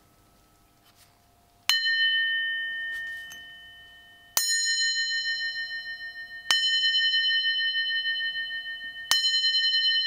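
A cut-down brass shell casing struck four times with a small ball-peen hammer, each blow setting it ringing like a bell at the same few clear pitches. The first ring fades away over a couple of seconds; the later ones follow closely enough that the ringing carries on between strikes.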